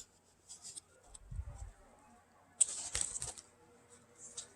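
Faint paper rustle as the picture book is handled and a page turned, after a soft low bump.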